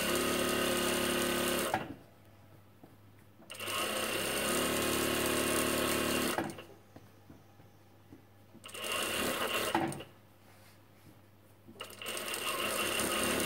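Industrial lockstitch sewing machine (a plain sewer) sewing a twin-needle top stitch round a knit hem. It runs in four spells of steady stitching, each a second or three long, stopping briefly between them; the third spell is the shortest.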